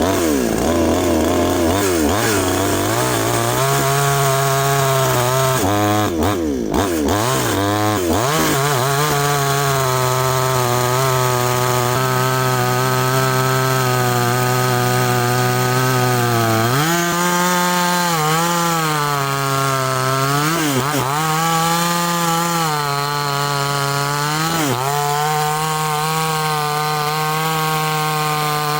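62cc two-stroke NEOTEC NCS6200 chainsaw running at high revs while cutting slices off a log. The engine pitch wavers in the first few seconds, then holds steady, dipping and recovering about two-thirds of the way through and twice more near the end as the chain loads in the cut.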